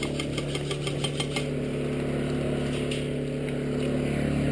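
A steady engine drone that grows slightly louder. A quick run of sharp clicks, about five a second, sounds over it in the first second and a half.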